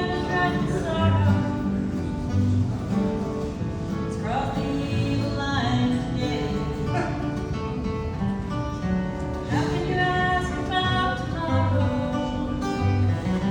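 Background music: a song with singing over acoustic guitar.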